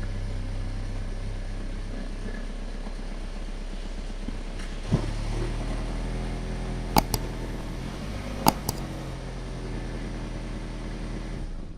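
Steady motor hum with a few sharp clicks, about five, seven and eight and a half seconds in.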